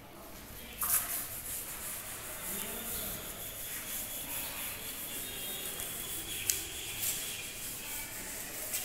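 A board eraser rubbing back and forth across a chalk blackboard, wiping off the writing. It is a steady scrubbing that starts with a knock about a second in, with a brief click later.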